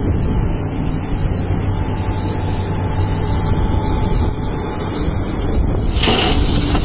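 Kobelco SK380HD excavator's diesel engine running steadily under load as the machine digs and swings. Near the end a bucketload of rock pours into the dump truck's body with a loud rushing rattle.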